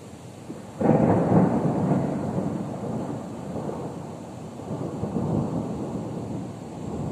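Thunder: a sudden loud clap about a second in that rolls on as deep rumbling, swelling again a few seconds later before fading.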